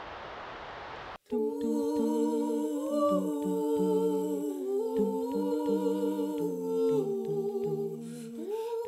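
A steady hiss that cuts off about a second in, followed by several voices humming a cappella in harmony, holding chords that shift slowly.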